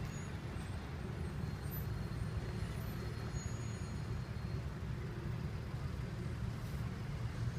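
A vehicle engine idling nearby: a steady low hum with faint outdoor background noise.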